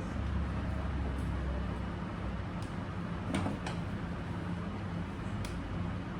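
A machine running with a steady low hum, with a few short sharp clicks or knocks, two close together about three and a half seconds in and one more about two seconds later.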